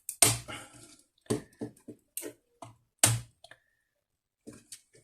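Laptop parts being handled during disassembly: about six sharp, irregular clicks and knocks as the power connector is unplugged and the motherboard is worked free.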